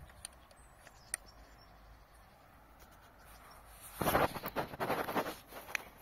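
A couple of small clicks from the tripod head being handled. About four seconds in, a second and a half of crunching rustle from footsteps on dry grass and leaves.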